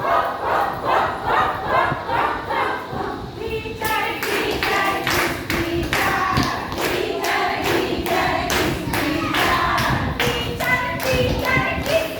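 A group of voices chanting a rhyme in rhythm, over a steady beat of thumps and claps, about two to three a second.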